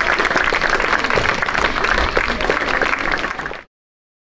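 Audience applauding with dense, steady clapping, which fades and then stops abruptly a little over three and a half seconds in.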